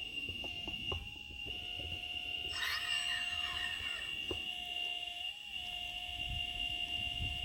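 Whine of an RC scale hydraulic excavator's pump, steady, lifting briefly in pitch twice as it takes load. Low knocks and scrapes of dirt being worked, and a burst of gliding squeals about two and a half seconds in.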